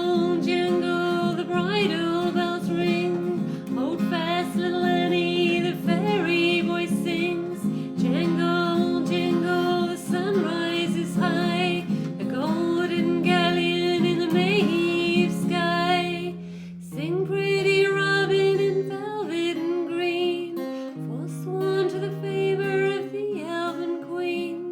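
Folk song music: acoustic guitar with a wavering melody line above it.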